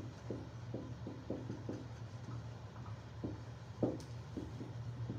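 A run of soft, short strokes or taps, about three a second, over a steady low hum. One sharper tap comes about four seconds in.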